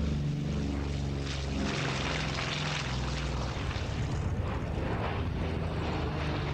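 Two Pratt & Whitney R-2800 radial engines of a Douglas A-26 Invader running at high power as the bomber takes off and flies past, a steady engine drone with propeller noise over it.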